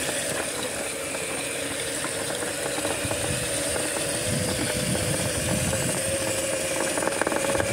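Electric mini bike motor whining at one steady pitch while riding over rough grass, with rattling and rumbling from the ride. The pitch creeps up slightly near the end.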